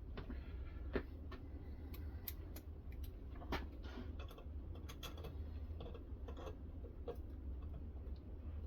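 Irregular light clicks and ticks from a guided knife-sharpening system as a stone is worked along a clamped blade. A steady low hum runs underneath.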